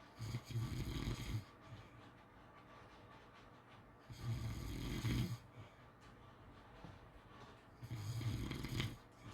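Pit bull snoring in sleep: three snores about a second long, roughly four seconds apart.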